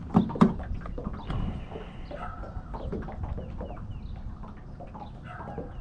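Two thumps close together at the start, then scattered bird calls.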